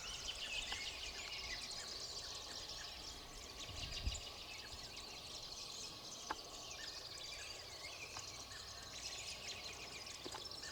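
A chorus of many songbirds singing and calling at once, high chirps and trills overlapping throughout, with a couple of brief knocks.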